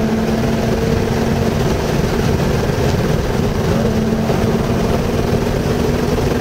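Car engine running at speed under a steady drone, with tyre and wind noise, heard from inside the cabin.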